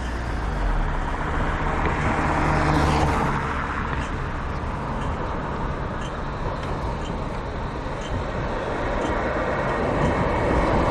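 City road traffic at an intersection: a vehicle engine running close by for the first few seconds, then the steady rush of passing cars.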